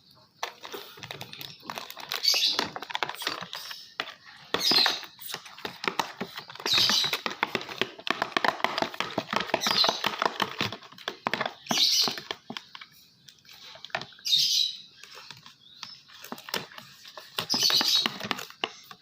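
Homemade glue slime, with body lotion just added, being mixed and stretched: sticky crackling clicks that come in bursts every two to three seconds.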